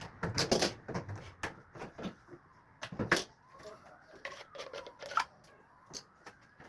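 Irregular clicks, knocks and rustles of washing-machine parts and tools being handled, with the loudest knocks about half a second in and around three seconds in.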